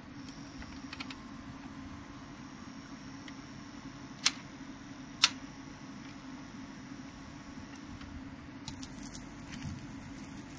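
Pioneer PL-X300 automatic mini turntable running with a steady low hum, two sharp clicks about four and five seconds in, and light mechanical clicking near the end as the automatic tonearm mechanism moves.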